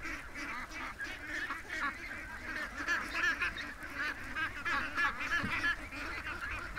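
A flock of Pekin and other domestic ducks calling as they walk out of their pen: many short, overlapping quacks and chatter.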